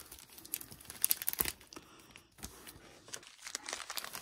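Grey plastic mailer envelope being handled and torn open by hand: crinkling and tearing, with a cluster of sharp crackles about a second in, then softer rustling.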